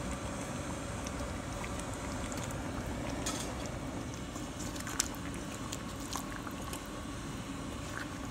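Chicken and vegetables in a thick tomato sauce simmering in a frying pan: a steady bubbling hiss with scattered small pops and clicks, the sharpest one about five seconds in.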